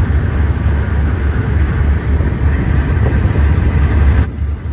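Tugboat's engines running underway with a steady low drone, with wind and rushing wake noise over it; the higher rushing noise cuts off abruptly near the end.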